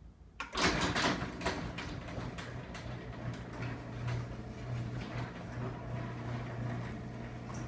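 A LiftMaster belt-drive garage door opener starts about half a second in and runs, a steady low motor hum under a stream of light clicks and rattles from the sectional door travelling in its tracks.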